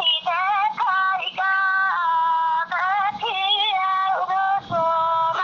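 High female voice singing a Bagheli birha folk song in short phrases of long held notes, each with sliding ornaments at the start and brief breaks between phrases.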